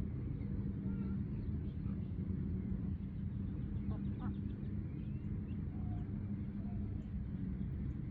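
Ducks quacking a few times, mostly around the middle, with faint bird chirps over a steady low rumble.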